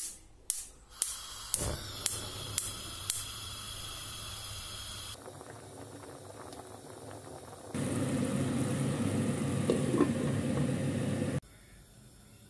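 Gas stove burner's spark igniter clicking about twice a second over a steady gas hiss as the burner lights. Then a pot of water boiling, a steady bubbling that grows louder partway through and stops suddenly near the end.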